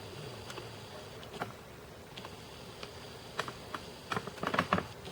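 Scattered light clicks and taps of handling, with a quick cluster of louder taps near the end.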